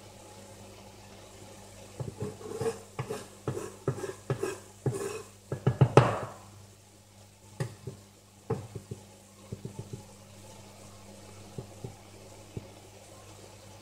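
A utensil stirring and scraping in a cooking pan, with irregular clacks against the pan that are loudest about six seconds in, then a few scattered light knocks.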